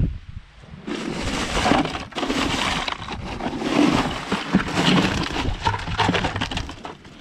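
Loose ice cubes crunching and clattering as a hand digs and shifts them around inside a plastic cooler, starting about a second in.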